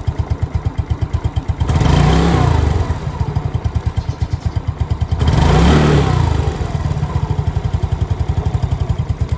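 2011 Yamaha Fino scooter's single-cylinder four-stroke engine idling with an even pulsing beat. It is revved up twice, about two seconds in and again about five seconds in, each time rising in pitch and falling back to idle.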